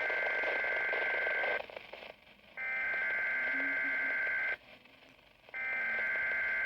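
SAME (Specific Area Message Encoding) digital header of a Weather Radio Canada alert test, received off a VHF weather radio: repeated bursts of two-tone data about two seconds long with a second of quiet between. The first burst ends about a second and a half in, a second follows, and a third begins near the end.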